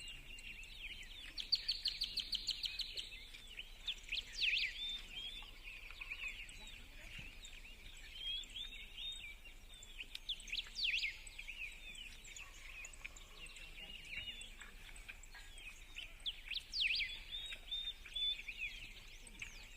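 Several birds singing and calling: sharp chirps and short whistled phrases overlapping throughout, with a fast trill about two seconds in, over faint steady outdoor background noise.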